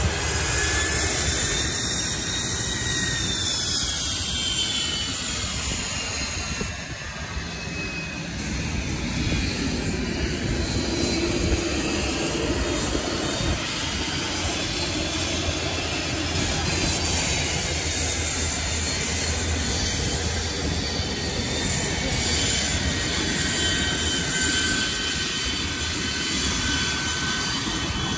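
Jet trainers, among them Aero L-39 Albatros, taxiing past with a steady turbine whine over a loud rush of engine noise. The whine slides down in pitch a few times as jets go by.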